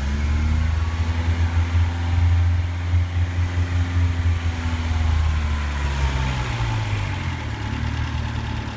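Toyota 3T-C four-cylinder engine with a header, just started and running at a fast idle that eases lower after about five seconds, its throttle-body EFI settling into idle.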